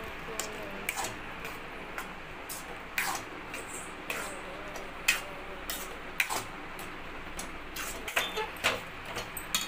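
Spoon scraping and knocking against a metal pan as thick semolina upma is stirred, in irregular clicks and scrapes that come quicker near the end, over a steady low hiss.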